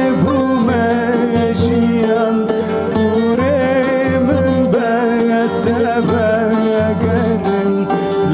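Background music in a Middle Eastern folk style: a melody that slides up and down in pitch over a steady low beat.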